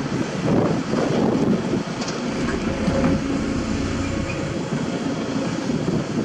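Kobelco SK75 mini excavator working: its diesel engine runs steadily under load with the hydraulics as the bucket digs into the soil.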